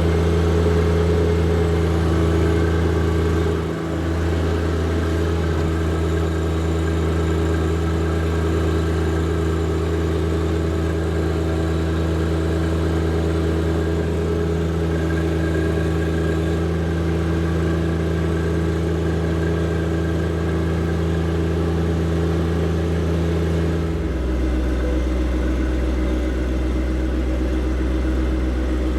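John Deere 1025R compact tractor's three-cylinder diesel running steadily under load while brush hogging a trail. The engine dips briefly about four seconds in, and near the end its note shifts slightly lower and settles.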